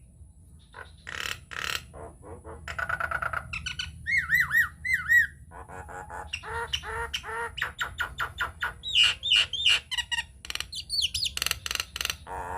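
Nias hill myna (jalak nias) singing a loud, varied song. Harsh squawks and rapid chattering mix with clear whistled notes that swoop up and down in repeated phrases, broken by short pauses.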